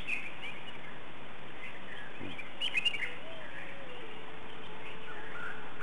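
Outdoor garden ambience: small birds chirping now and then, with a small cluster of chirps about halfway through, over a steady background hiss. A faint held whistle-like tone runs through the second half.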